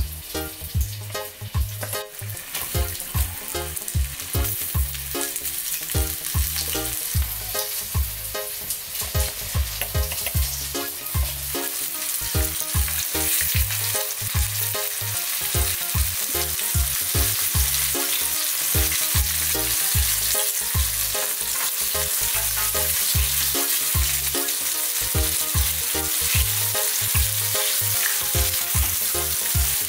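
Floured horse-eye jack pieces frying in shallow oil in a pan: a steady hissing sizzle that grows louder about halfway through. Background music with a steady bass beat runs underneath.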